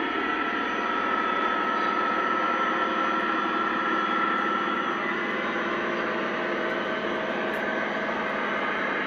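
Lionel O-gauge model train running along its track: a steady metallic rolling rumble of wheels on rail with motor hum and a held ringing tone. The ringing tone weakens about halfway through.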